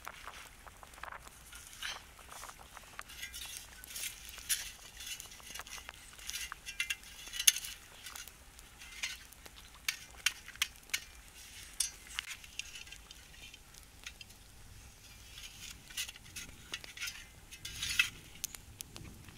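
Metal shovel scraping and scooping through gravel and hot embers around a stone fire pit, with scattered clinks of pebbles and light knocks. The embers are being piled onto a pot's lid.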